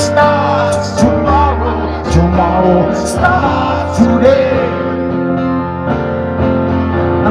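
Live rock band playing, with a gliding lead melody over held chords and a drum or cymbal strike about once a second.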